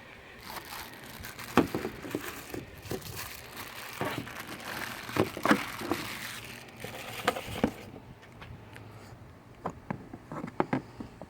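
Crinkling and rustling of hands handling plastic parts close to the microphone, with several sharp clicks and knocks. The rustling stops about eight seconds in, and a few lighter taps follow near the end.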